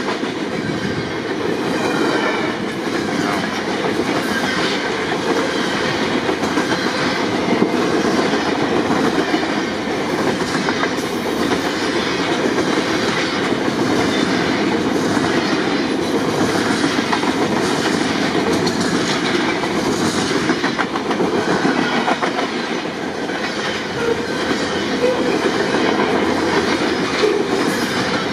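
Freight train of boxcars and lumber-loaded centerbeam flatcars rolling past close by: a steady noise of steel wheels on the rails with a constant clickety-clack of wheel clicks.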